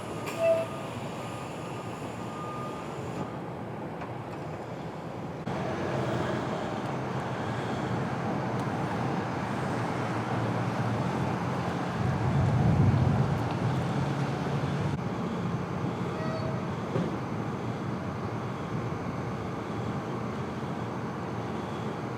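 Urban street ambience: steady traffic rumble, with a heavier vehicle swelling past about halfway through. A short, loud blip sounds just after the start.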